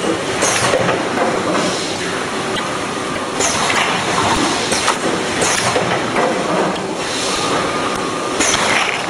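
Automatic cup filling and sealing machine running: a steady mechanical clatter of the indexing cup tray and heads, with short hisses of air every second or so.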